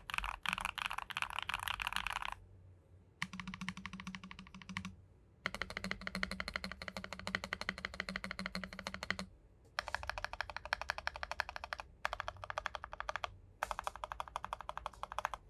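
Glorious GMMK TKL mechanical keyboard with Akko CS Silver linear switches and tuned, lubed stabilizers, typed on fast in six bursts of rapid keystrokes with short pauses between them.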